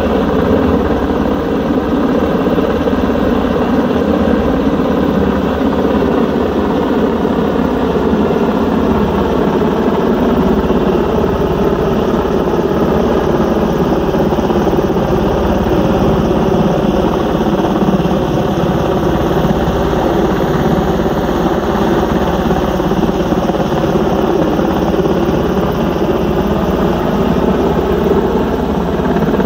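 Helicopter hovering overhead with a load on a long line: a loud, steady drone of rotor and turbine engine whose pitch drifts slightly up and down.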